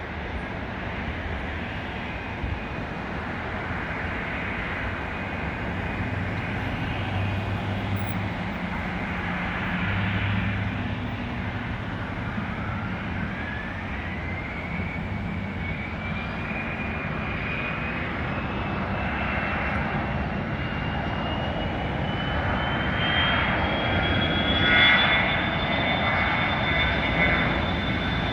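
Dassault Falcon 2000EX's twin Pratt & Whitney PW308C turbofans running, spooling up for takeoff. About halfway through, a whine rises steadily in pitch and then holds high near the end, over a steady engine noise.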